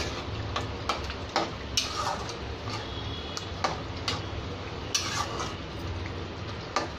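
Flat metal spatula stirring a thick chicken and egg curry in a metal kadai, scraping and clinking irregularly against the pan, with the sharpest strokes a little under 2 seconds in and about 5 seconds in. A steady low hum runs underneath.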